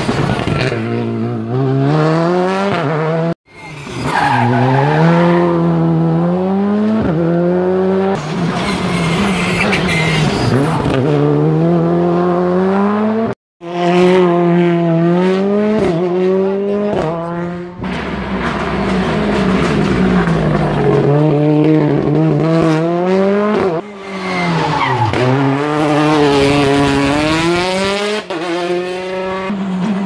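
Rally cars at stage speed, engines revving hard, the pitch climbing through each gear and dropping sharply at every shift and lift for braking, one car after another. The sound cuts off abruptly twice, about three and a half and thirteen and a half seconds in.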